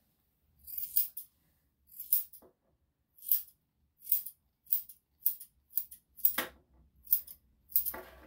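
Grooming scissors snipping the hair on a dog's face: about ten crisp snips, roughly one a second, some in quick pairs.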